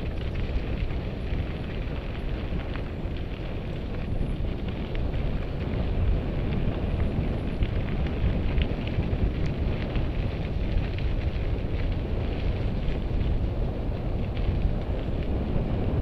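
Wind rushing over the microphone of a moving mountain bike, mixed with the tyres rolling over a dirt and gravel trail, with scattered small ticks.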